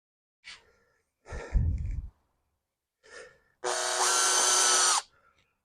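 Power drill driving in a small screw, one steady run of about a second and a half whose motor pitch steps up as it starts. Before it come a couple of clicks and a handling thump.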